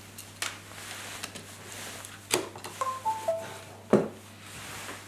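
Clicks and rubbing of USB plugs being handled, ending in a sharp click about four seconds in as a USB power meter is pushed into the GPD Pocket's USB port. Just before it, a short electronic chime steps down in pitch.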